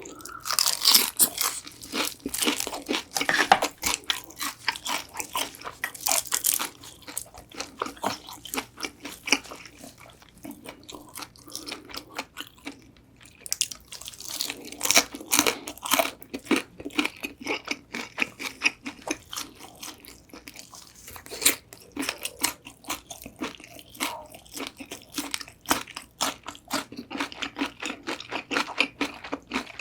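Close-miked crunching and chewing of crispy Korean old-style whole fried chicken, in bursts of crackly bites with quieter chewing in between.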